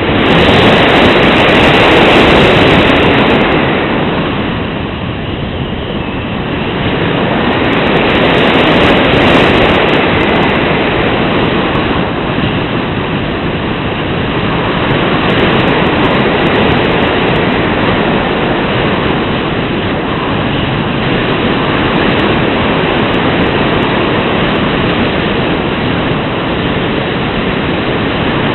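Loud wind rushing and buffeting over the microphone, a steady roar that swells and eases every few seconds.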